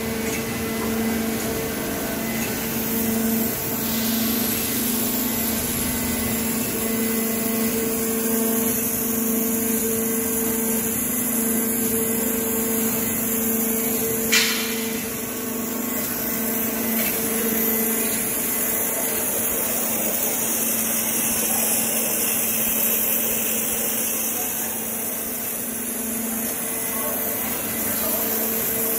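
YF Water Jet CNC waterjet cutting machine running: a steady hum under a constant hiss, with one sharp click about halfway through.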